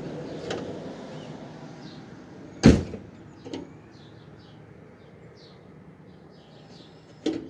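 A loud, heavy thud a little under three seconds in, a lighter knock about a second later, and another sharp thud near the end, over a low rumble that fades away in the first few seconds.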